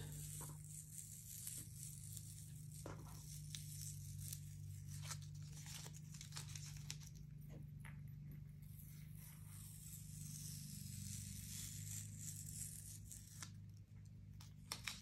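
Blue painter's tape being slowly peeled off tracing paper: a faint, continuous crackling rip broken by small snaps.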